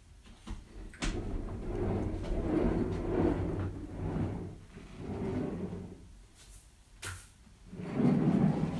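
Plastic scooter board's casters rolling on a hardwood floor, a low rumble that swells and fades as the child pushes herself along by hand, dropping away briefly about six seconds in. A sharp click about a second in and another near seven seconds.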